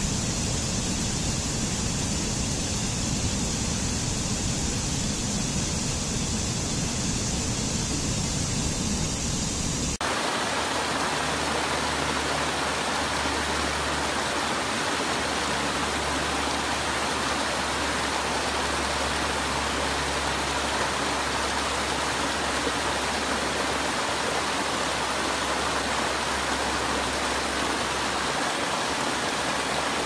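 Rushing water of a mountain stream cascading over boulders, a steady rush. About ten seconds in it cuts to a different, fuller rush of water tumbling over low rock ledges.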